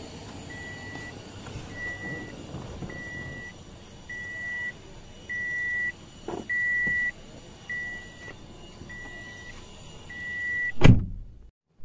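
A 2010 Toyota Vitz's warning buzzer beeping at a steady pace, a high even tone about once a second, some nine beeps in all. A loud thump near the end.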